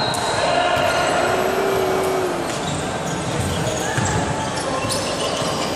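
Indoor volleyball rally: several sharp smacks of the ball being played and footfalls on the court, with players shouting over the hall's background noise.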